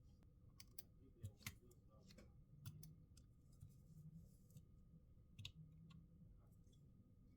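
Faint, scattered clicks and taps of small hand tools and plastic parts being handled while a smartphone is taken apart, with a quick pair of clicks a little over a second in and single clicks later.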